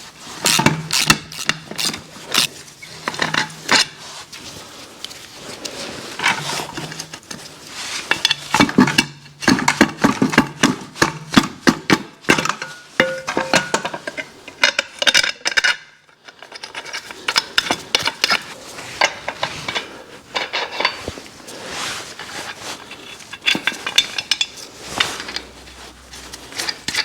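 Metal tools and car parts clinking and clattering as they are handled, in irregular runs of sharp knocks and clinks, with a short pause about halfway through.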